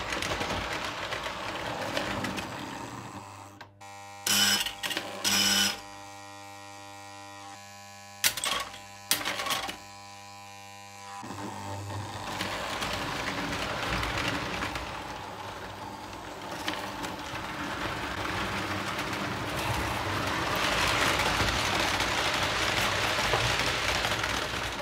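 Lionel O-gauge steam locomotive and freight cars running on three-rail track, a steady whirring rumble. About three and a half seconds in it drops away, leaving a steady hum broken by four short loud blasts. It then comes back and grows louder toward the end.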